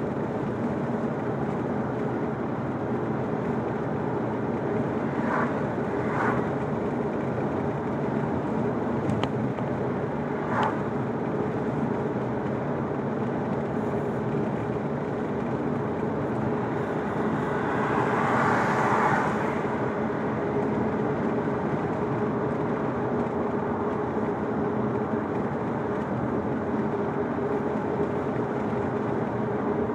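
Steady engine and tyre noise of a car driving on an asphalt road, heard from inside the cabin, with a low steady hum. There are a few faint short knocks, and a brief swell of louder rushing noise about two-thirds of the way through.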